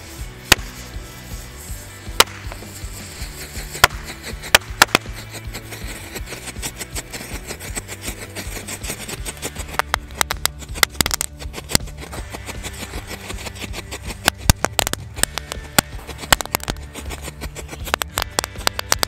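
Diwali firecrackers popping and crackling over background music: a few single sharp pops at first, then rapid dense crackling from about halfway through.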